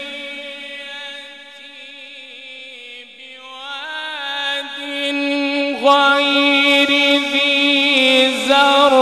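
A man's voice in melodic (mujawwad) Quran recitation: a long held note fades away, then about four seconds in a new ornamented phrase rises in pitch and grows louder from about six seconds.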